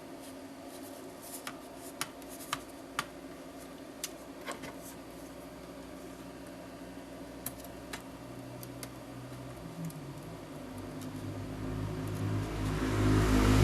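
A steady hum with scattered small, sharp clicks, a dozen or so, spaced irregularly through the first two-thirds. Near the end a low rushing noise swells up and grows louder.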